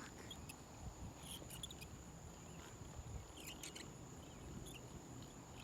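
Faint outdoor ambience: a steady high-pitched insect drone, with a few light ticks and a low rumble underneath.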